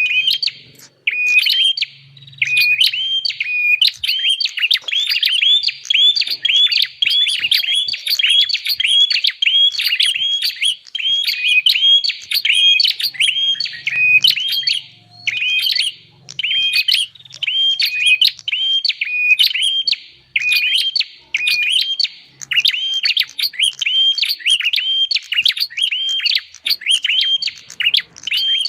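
Recorded prinia (prenjak) calls used as a bird-catching lure: a fast, unbroken series of sharp chirps, several a second, with only brief breaks now and then.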